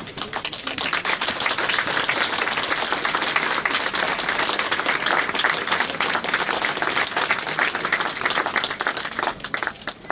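Crowd applauding, a dense, steady clatter of many hands clapping that thins out near the end.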